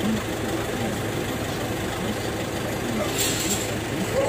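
Van engine idling steadily, with a short bright clink or rattle a little over three seconds in.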